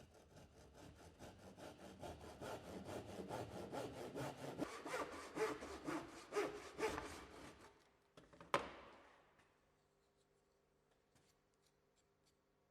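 Tenon saw cutting timber in rapid, even strokes that grow louder and then stop about eight seconds in, followed by a single sharp knock.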